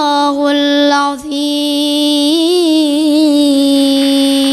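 A boy's voice chanting Quran recitation in maqam bayati into a handheld microphone. He holds long drawn-out notes, with a short break about a second in and a wavering, ornamented turn in the middle. This is the drawn-out close of the recitation, and applause follows.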